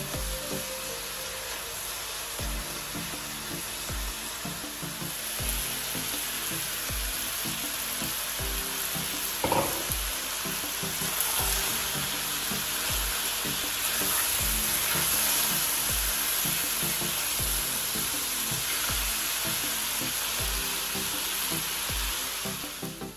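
Sliced champignon mushrooms, red bell pepper and onion sizzling as they fry in a nonstick pan, turned now and then with a silicone spatula. The sizzle grows louder after about five seconds.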